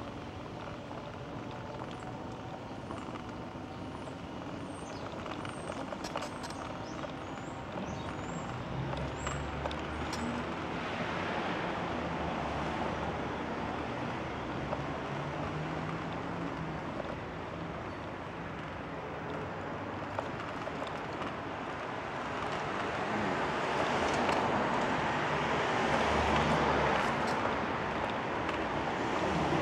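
City street traffic: vehicles driving past on the road, swelling louder about a third of the way in and again near the end as cars go by.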